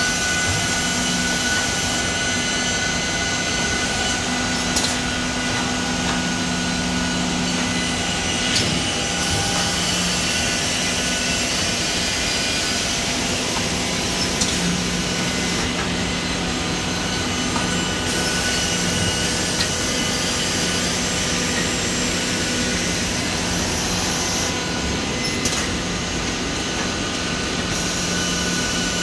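Automatic edge banding machine running steadily with its dust extraction: a dense, even machine noise with a constant low hum. A few small ticks come through it.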